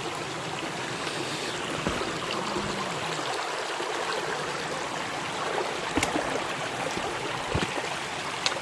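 A small river running steadily, a continuous rush of flowing water, with a few light knocks about 2, 6 and 7.5 seconds in.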